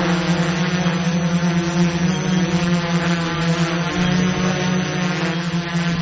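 Small quadcopter drone's propellers and motors running with a steady, loud buzzing hum, its pitch wavering slightly.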